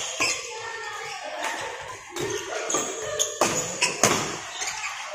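Badminton rackets striking a shuttlecock during a doubles rally: several sharp hits, irregularly spaced.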